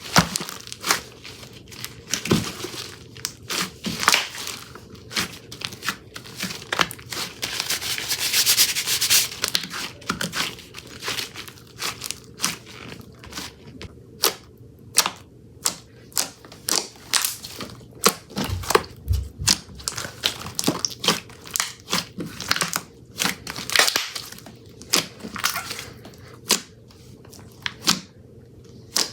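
Slime being squished and pressed by hand, with many irregular sharp pops and clicks and a longer crackling stretch about a third of the way in.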